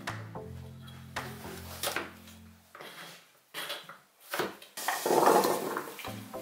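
Crinkle-cut knife slicing carrot on a wooden cutting board, a knock with each cut. About five seconds in, a louder scraping rattle as the slices are slid off the board into a bowl.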